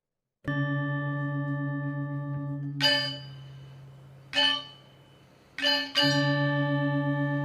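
Gamelan music: bronze gongs and metallophones struck a few times, each stroke ringing on with a long, wavering sustain. A deep gong-like note dies away near the middle and is struck again about six seconds in.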